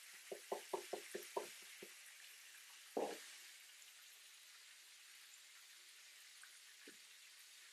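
A seasoning shaker shaken over a frying pan, a quick run of about eight taps, then a single louder knock about three seconds in. Under it a faint steady sizzle of perch fillets frying in butter.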